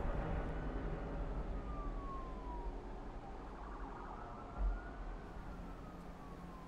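A distant police siren wailing, its pitch sliding slowly down and up, fading away over a low rumble. A single low thud comes about two-thirds of the way through.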